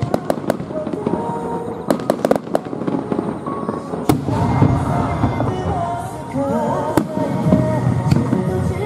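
Aerial fireworks shells bursting in a run of sharp cracks and pops. About four seconds in, louder music with a melody comes in over them, and another sharp bang follows a few seconds later.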